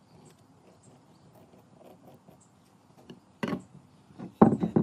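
Faint scratching of a ballpoint pen tracing around a plywood template on a pine block, then wooden knocks as the template is lifted off and set down on the wooden workbench: one knock a little past the middle and a quick cluster of louder knocks near the end.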